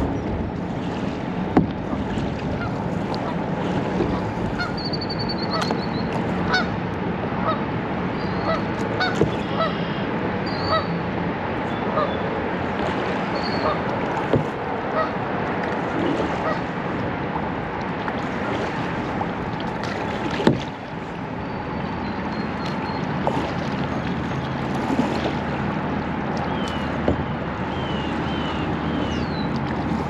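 Geese honking in a run of short, evenly repeated calls, over a steady wash of water and wind around a kayak. Small birds chirp now and then, and a single sharp knock sounds about two-thirds of the way through.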